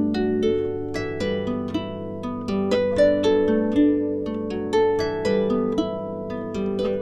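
Background music: plucked string notes in a quick, flowing pattern, several notes a second, over a steady low tone.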